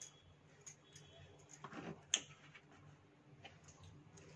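Table knife scraping cheese spread across a slice of bread: faint scrapes and small ticks, with one sharper click about two seconds in.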